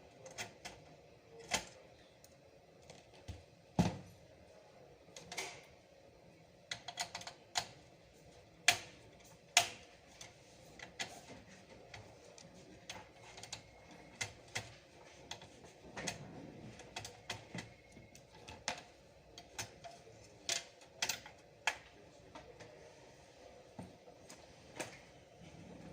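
Irregular clicks and light knocks of hard parts being handled while a desktop PC is worked on, about one every second with a few louder ones.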